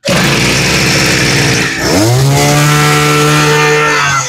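Makita MEM230 brush cutter's 23 cc engine pull-started, catching at once and running. About two seconds in it is revved up and held at high speed, then the throttle drops back near the end.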